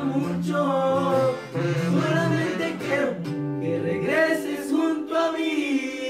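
Music: a man singing over guitar accompaniment.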